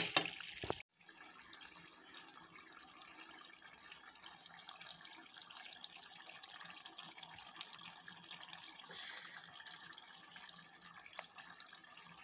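Chicken karahi's tomato-and-chicken gravy simmering on low heat in an open pan, a faint steady bubbling with small pops. It opens with one sharp clink, the ladle against the pan.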